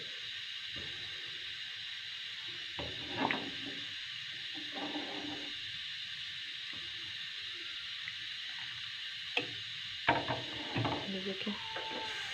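Metal spoon stirring milk heating in a metal pan, scraping and knocking against the pan a few times about three seconds in and in a cluster near the end, over a steady high hiss.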